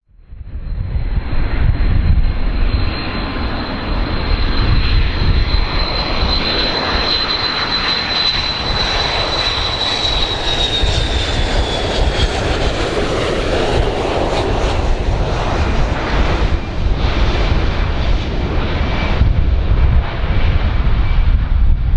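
Airplane engines running loud: a heavy rumble with a high, thin whine that slowly drops in pitch about ten seconds in. The sound starts abruptly from silence.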